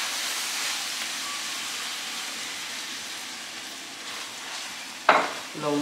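Drained ground beef with taco seasoning sizzling in a hot skillet after a little water has been added, a steady hiss that slowly gets quieter. A sharp knock near the end.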